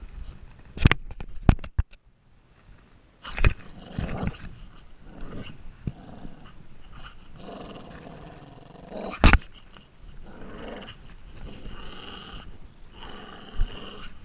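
A dog growling in play while tugging on a plush toy, with a few sharp knocks, the loudest about a second in and about nine seconds in.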